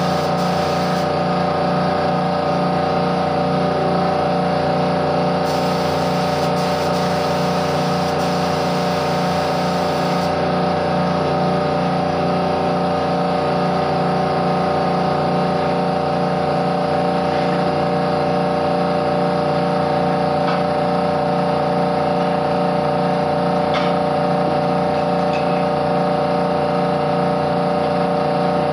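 Air compressor for spray-varnishing running steadily with a constant motor hum. Over it come stretches of hissing air, the longest from about five to ten seconds in.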